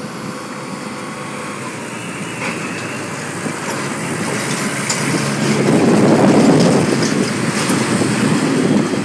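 American Airlines Boeing 737-800's CFM56-7B jet engines at takeoff thrust during the takeoff roll: a steady jet rumble that grows louder, peaking about six seconds in and staying strong.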